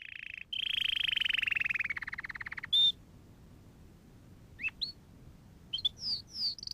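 Canary singing: a long rapid trill that slows into separate pulses, a short chirp, then a few rising chirps and quick falling whistles running into a higher trill near the end.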